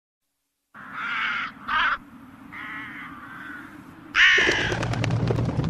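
Crows cawing in a series of harsh calls: two loud caws, two fainter ones, then another loud caw about four seconds in. A low rumble with scattered crackles sets in under the last caw.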